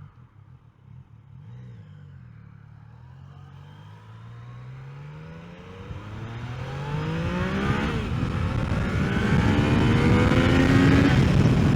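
Yamaha XSR900's 847 cc inline-three engine accelerating hard under way, its pitch rising, then dropping as it shifts up about two-thirds through and again near the end. Wind rush builds with the speed.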